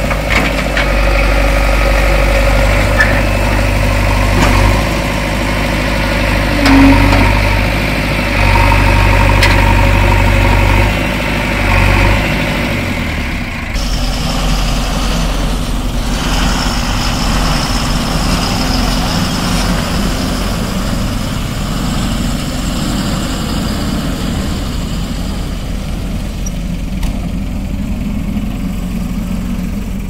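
Diesel engines of a JCB 3DX backhoe loader and an Ashok Leyland tipper truck running close by, a loud steady engine hum. About halfway through the sound shifts abruptly to a different, somewhat quieter engine note.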